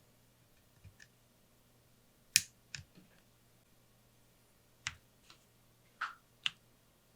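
Lofree Wanderfree keyboard keys pressed one at a time: about nine scattered, irregular clicks, the loudest about two and a half seconds in, over a faint low hum.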